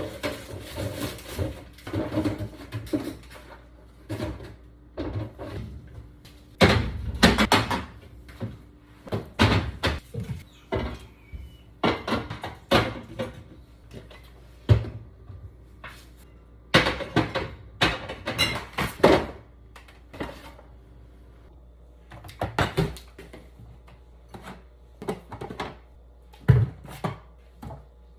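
Irregular knocks, thuds and clatter of food containers and fridge drawers being handled and moved while a refrigerator is cleaned out, in short bursts with quiet gaps between.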